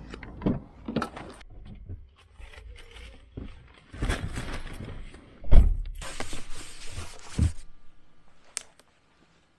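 Movement and handling noises of someone getting into a car seat with a rustling paper takeaway bag. A car door shuts with a heavy thud about five and a half seconds in, the loudest sound.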